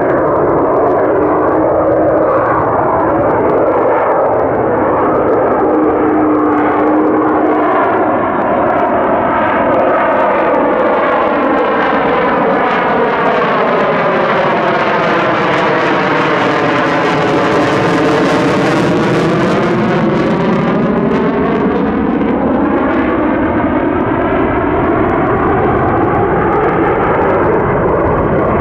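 Single-engine F-35A Lightning II fighter jet, powered by its Pratt & Whitney F135 turbofan, flying past overhead with loud, steady jet noise. A swirling, phasing sweep dips and rises through the noise as it passes, with the high hiss strongest a little past the middle.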